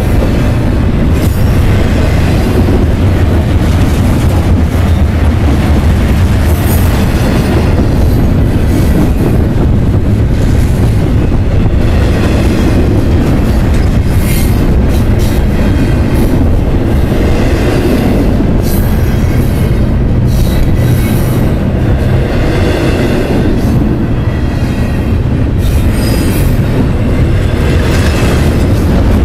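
Double-stack intermodal freight train passing at close range: a steady, loud rumble and clatter of steel wheels on the rails, with high-pitched wheel squeal coming and going.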